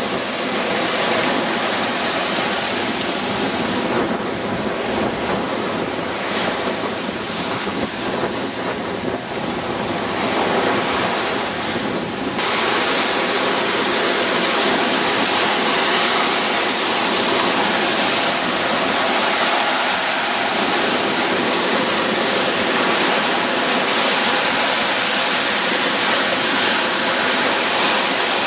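Surf breaking and washing up a sandy beach, with wind buffeting the microphone. The noise becomes fuller and louder about twelve seconds in.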